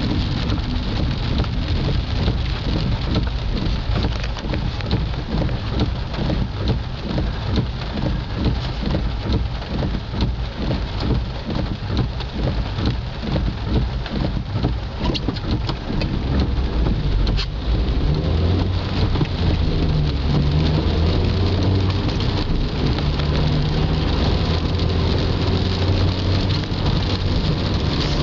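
Heavy rain pattering on a car's windshield and roof, heard inside the cabin, over the hiss of tyres on the wet road. A steady low engine hum comes up in the second half.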